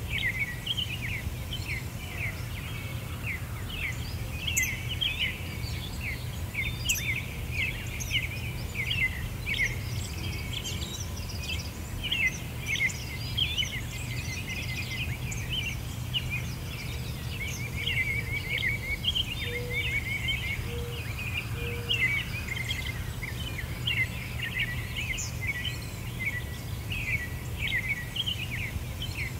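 Many small birds chirping in a dense chorus, short quick calls overlapping all the way through, over a steady low background rumble.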